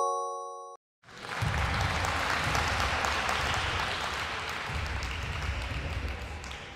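A chime rings and stops under a second in. After a brief gap comes applause, lasting about six seconds and fading out at the end.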